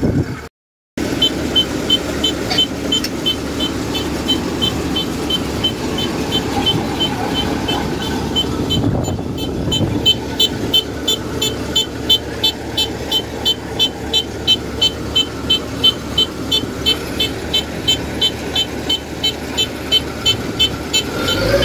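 Kubota DC-93 Extra rice combine harvester running steadily. A high-pitched beeper repeats evenly about two to three times a second and grows louder about halfway through.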